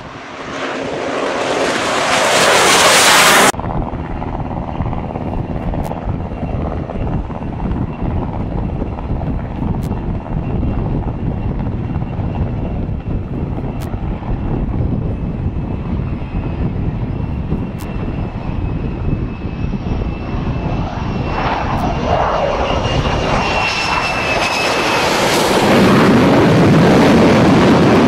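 F-35 fighter jet engines: a loud rushing pass that cuts off abruptly a few seconds in, then the steady distant rumble and high whine of jets on approach, swelling loud again near the end as a jet flies low overhead.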